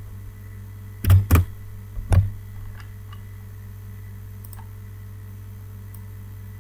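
Computer keyboard keystrokes: two quick strikes about a second in and a third about two seconds in, then a few faint clicks. A steady low electrical hum runs underneath.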